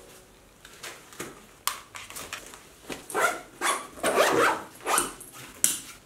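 Zipper on a fabric backpack being pulled back and forth in a run of short, quick zipping strokes, loudest in the second half.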